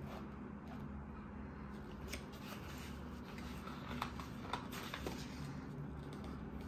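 Paper pages of a softcover sketchbook being flipped by hand, with a few short, crisp rustles and snaps around the middle, over a steady low hum.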